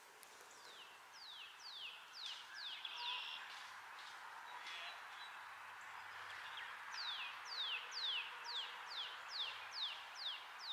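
A songbird singing two runs of quick, downslurred whistled notes, about three a second. The first short run comes near the start and a longer run in the second half.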